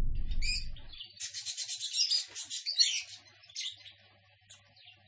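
Music fading out in the first second, then small birds chirping in quick runs of high twitters, thinning to a few scattered chirps near the end.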